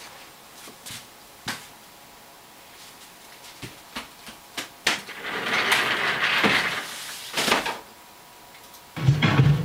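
Footsteps and light knocks, then a longer rolling scrape as the office chair is pushed aside across the floor. A few keyboard or mouse clicks follow, and about a second before the end a rap track with a heavy bass beat starts playing loudly from the computer speakers.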